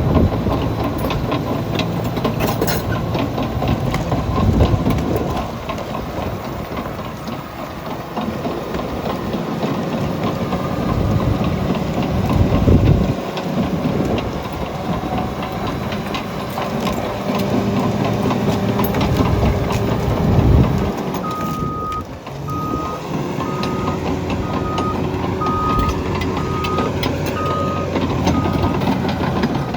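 Caterpillar D6N LGP bulldozer's diesel engine working under load, its note swelling and easing as it pushes, with clanks and knocks from the tracks and the dirt and concrete being pushed. About two-thirds of the way in a reverse alarm starts beeping about once a second as the dozer backs up.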